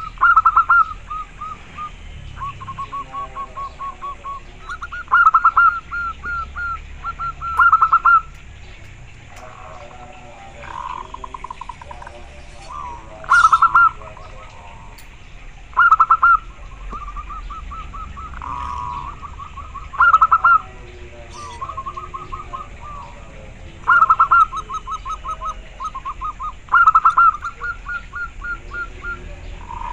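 Zebra dove (perkutut) singing its rapid cooing song in repeated phrases. Each phrase is a few loud notes followed by a fast run of short, quicker notes, coming every two to four seconds.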